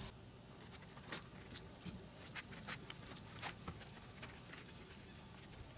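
Faint wet patter of scattered small clicks and pops, most of them in the first half, from a soapy sheepskin wash pad being worked over a wet car during a hand wash.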